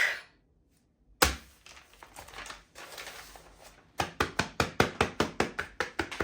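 One sharp knock, then from about four seconds in a fast, even run of sharp taps, about five a second.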